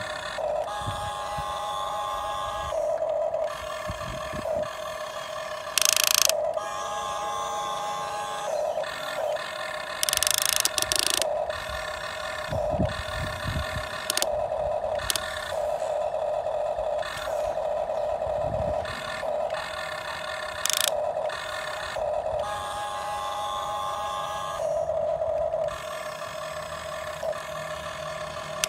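Small electric motors of a radio-controlled excavator whining in short spells that start and stop every second or few, with a few brief scrapes.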